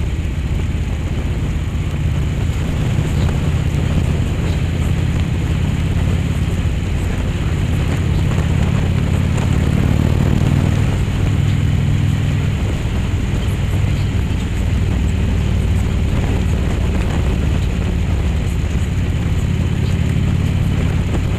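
Motorcycle engine running steadily at cruising speed, heard close from the bike itself, with wind rush over it. The low engine note swells slightly about ten seconds in.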